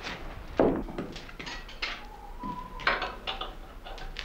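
Irregular knocks, clacks and scrapes of metal and wood at a clog-copying machine as the wooden clog blank in it is worked. There is a short squeak a little past halfway.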